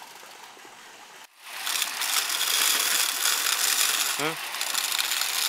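Small pedal-driven flour mill grinding rice, chain-driven from the bicycle pedals. A loud, dense rasping grind starts about a second and a half in and keeps on steadily.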